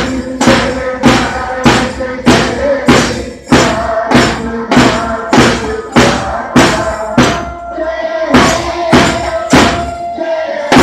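School band drum beaten at a steady march beat, just under two strokes a second, under a bugle sounding long held notes.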